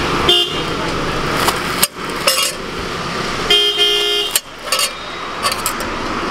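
Road traffic running steadily, with a vehicle horn honking: a short toot just after the start and a longer honk of about a second past the middle. Several sharp knocks of a knife against the steel griddle come in between, as a fried tikki is cut up.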